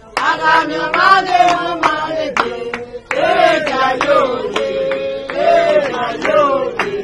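Women singing together, holding long sliding notes, with a few scattered hand claps.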